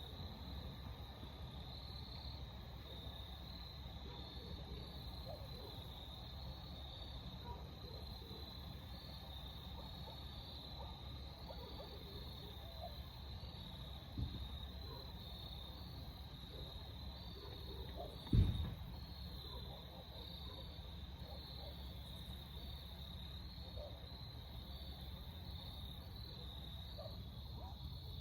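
Steady high-pitched chorus of crickets or similar evening insects, over a low outdoor rumble. Two dull thumps come about 14 and 18 seconds in, the second louder.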